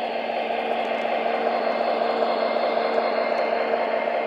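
MTH O-gauge model of the Union Pacific 4141 diesel locomotive running along three-rail track, giving a steady, even whir of motors and wheels with a constant hum.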